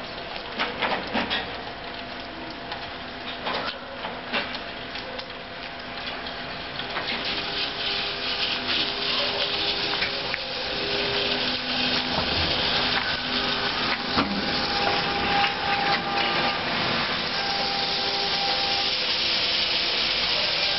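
Astra Bus trolleybus driving slowly past at close range, its electric drive giving a few steady whining tones over tyre noise on the wet, slushy road, louder as it comes alongside. A few clicks and knocks come in the first seconds.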